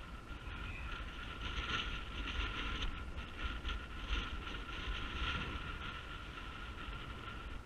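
Wind buffeting an outdoor camera microphone: a low, uneven rumble with a hiss that swells and fades, and a faint steady high tone underneath.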